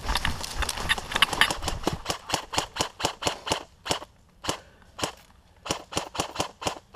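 Airsoft gunfire: a fast string of sharp shots, mixed for the first two seconds with footsteps crunching through dry leaves. The shots then come more spaced, a few a second, in short bursts with brief pauses.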